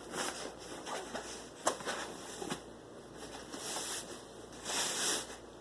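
Soft rustling of fabric and packaging as a foam pillow is handled, in several short stretches with a couple of small clicks.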